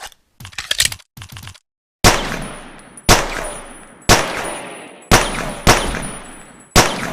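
Pocket pistol sound effect: a few short clicks, then six single shots spaced about a second apart (the fourth and fifth closer together), each ringing out in a long echoing decay.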